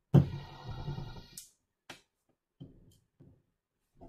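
Atlas Copco MicroTorque electric screwdriver running for about a second and a quarter with a steady whine, ending in a sharp click. Another click follows about half a second later, then a few soft knocks.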